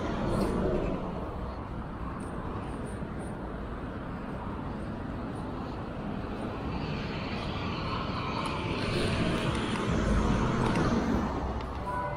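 City street traffic: a steady wash of cars going by, growing louder for a few seconds near the end as a vehicle passes.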